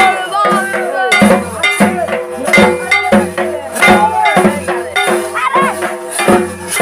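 Music with a steady percussion beat, about two strokes a second, and a voice singing a melody over it.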